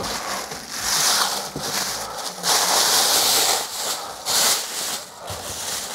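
Thin plastic masking sheeting rustling and swishing as it is pulled out and swiped flat against a wall to push the air out from behind it. It comes in several uneven swishes of about a second each.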